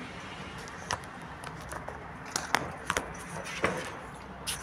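A litter of American pit bull terrier puppies mouthing and licking at a small plastic bottle: scattered small clicks and smacks, several close together in the middle, over a steady low hiss.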